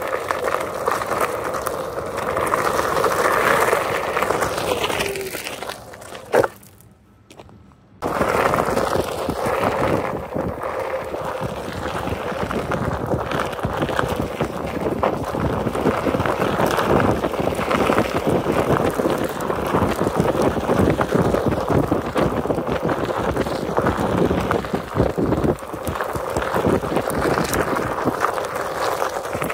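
Onewheel Pint X electric board's tyre rolling along a dirt and gravel trail: a steady, noisy rumble. About six seconds in there is a sharp knock, then the noise drops away for about a second and a half before the rolling starts again.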